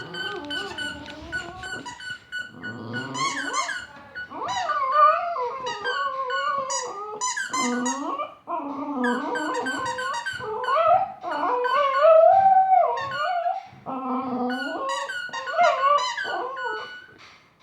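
Border Terrier howling along in long, wavering cries that slide up and down in pitch, with short breaks between them, in a 'singing' answer to a squeaky toy. The squeaker's steady squeal sounds at the start and again near the end.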